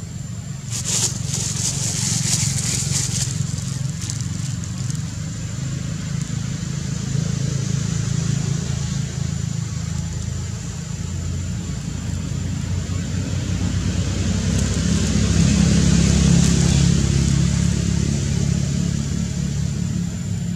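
A steady low background rumble that swells louder about two-thirds of the way through, with a brief crackle about a second in.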